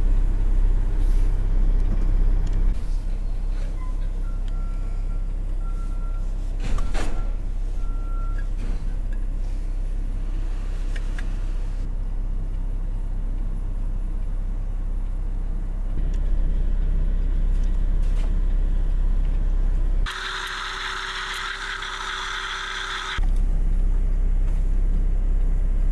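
Semi-truck engine idling as a steady low hum inside the cab, with a few knocks of handling about seven seconds in. About twenty seconds in, a small blender runs for about three seconds, blending papaya, banana and milk into juice.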